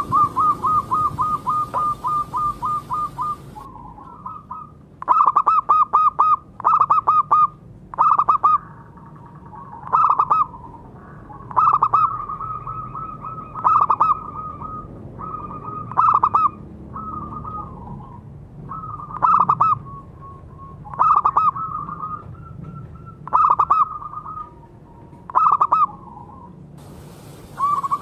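Zebra dove (perkutut) cooing: a fast, even run of short coo notes for the first three seconds or so, then short rapid coo phrases repeated about every two seconds.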